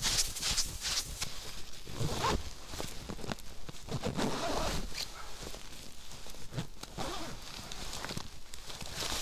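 Crunching steps in deep, dry snow, then the rustle and scrape of a coated-fabric sled bag being handled and opened with gloved hands.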